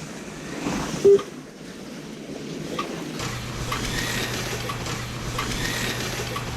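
Model race cars running on a home slot-car track, a steady whirring haze of motors and added race-car engine sound. There is one short loud beep about a second in, and a low steady hum joins about three seconds in.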